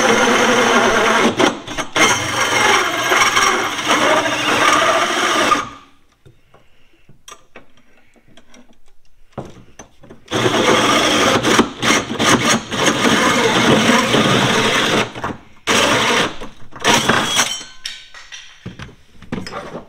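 Cordless drill driving a large hole saw through the floor of a pickup truck bed, cutting a big round hole. Two long runs of cutting, the first stopping about six seconds in and the second starting about four seconds later, then a few short bursts near the end.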